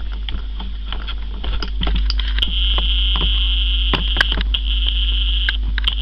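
Camcorder zoom motor whining steadily for about three seconds, starting about two seconds in, over a constant low hum, with scattered clicks from the camera being handled.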